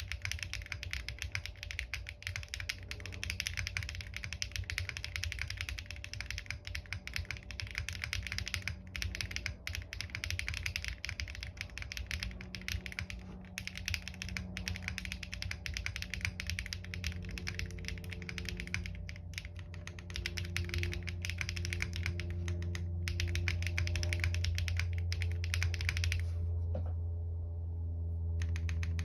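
Fast, continuous typing on a Jris65 custom mechanical keyboard with lubed Zaku switches on a POM plate, a dense run of keystroke clicks that stops near the end.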